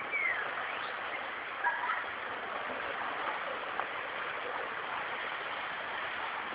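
Steady rushing water at a swimming pool, with a few faint distant voices now and then.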